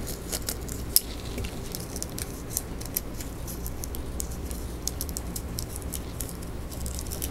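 Scattered light clicks and taps of a metal lightsaber hilt and its plastic battery carrier being handled and fitted together, with a sharper click about a second in, over a steady low hum.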